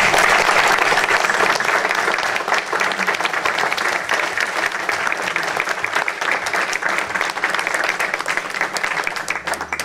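An audience applauding, a dense clatter of many hands clapping that dies away near the end.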